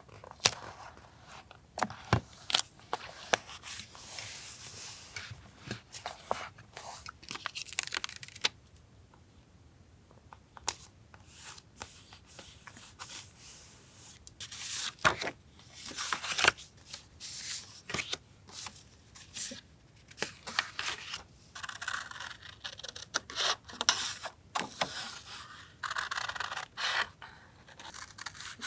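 Paper collage work: sheets of paper rustling and being torn and cut, with repeated sharp clicks and taps and several longer stretches of tearing or rubbing.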